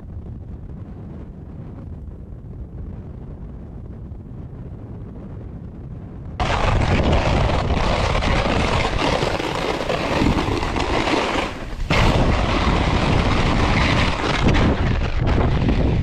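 Wind buffeting the microphone: a low rumble at first, then a sudden, much louder rushing about six seconds in that keeps going with a short lull near the end.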